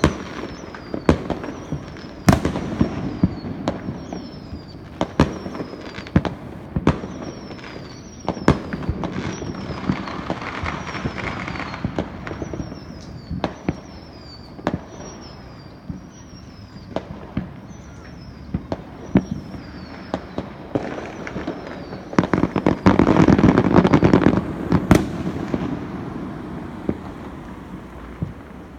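Fireworks: sharp bangs at irregular intervals over steady crackling, with a louder stretch of dense crackling and rumbling about three-quarters of the way through. A short high falling whistle repeats about once a second through the first two-thirds.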